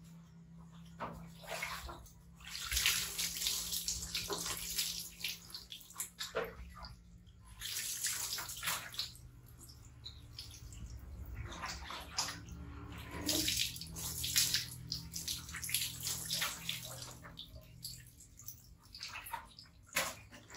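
Water splashing and pouring in irregular bursts as a baby monkey is washed by hand, with water streaming and dripping off its fur onto a tiled floor.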